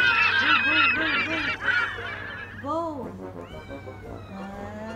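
A dense chorus of many overlapping animal calls for about the first two seconds, then a single clear cat meow near three seconds in, followed by a few fainter rising mews.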